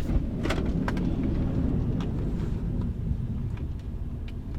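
Car engine and road rumble heard from inside the cabin as the car drives, with a few faint clicks.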